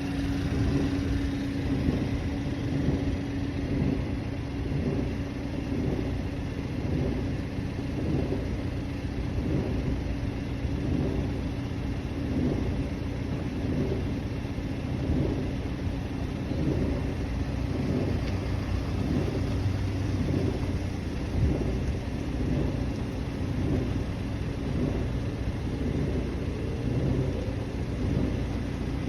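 BMW 330e plug-in hybrid's 2.0-litre turbo four-cylinder engine running cold, with a steady low rumble that swells and fades in waves: the soft roar or wave of vibration the owner hears on cold starts, which goes away once the oil is warm.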